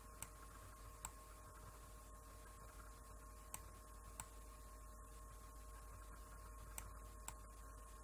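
Faint computer mouse button clicks, six in all, two pairs of them about half a second apart, over a low steady electrical hum.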